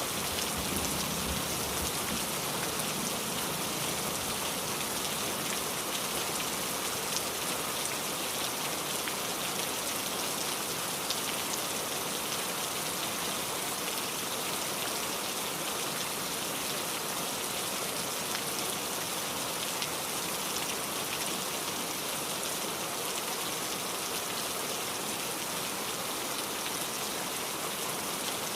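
Heavy rain falling steadily, a dense, even hiss of many drops. The tail of a low thunder rumble fades out in the first few seconds.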